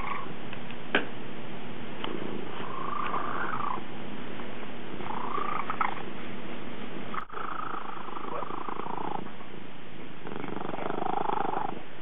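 Domestic cat purring continuously, with a swell roughly every two to three seconds as it breathes in and out. There is a short click about a second in.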